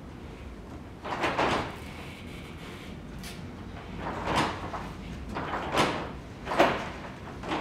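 Green masking tape being pulled off the roll in short strips, about four or five pulls a second or more apart, as it is laid onto a metal motorcycle fender.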